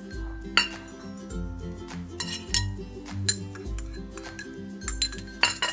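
Sharp, irregular clinks and knocks of a ceramic bowl and spoon against a granite mortar and pestle as chillies, garlic and coriander root are tipped in, over background music.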